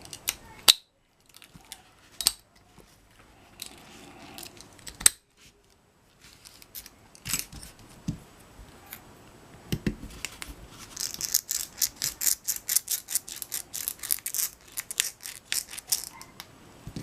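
Small metal clicks and taps of tools working a padlock's pin chambers as the pins are pushed out. Near the end comes a quick run of light clicks, several a second, for about five seconds.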